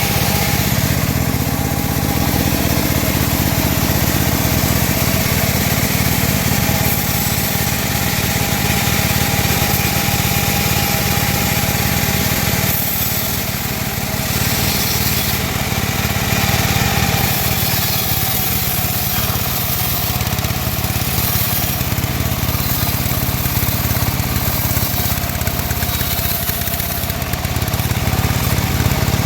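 Band saw running steadily while cutting wood, a continuous motor hum with a rougher noise on top that shifts in strength now and then.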